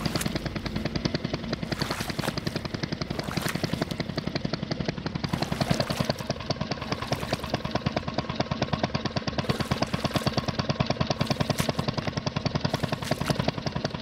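A jet ski's engine running with a rapid, even throb.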